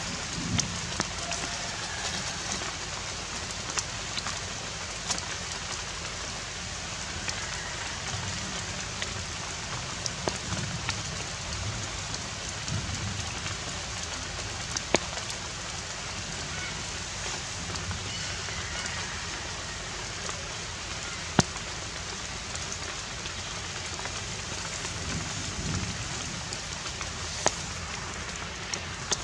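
Steady rain falling on foliage, an even hiss with scattered sharp clicks of single drops.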